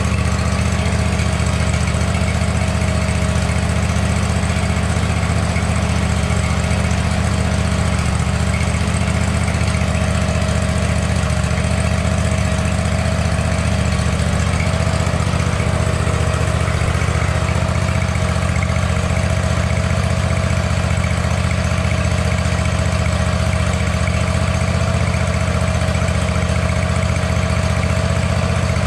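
Zero-turn riding mower's small gasoline engine running steadily, revived after sitting for a long time.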